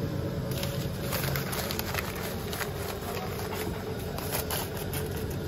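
Fast-food kitchen background: a steady low hum with scattered light clicks and clatter, and no clear voices.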